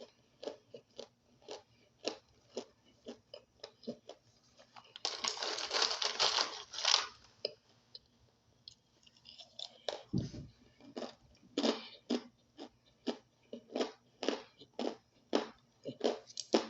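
Chewing crunchy chunks of dry starch, crisp crunches coming about one or two a second, with a longer, denser stretch of crunching noise about five seconds in.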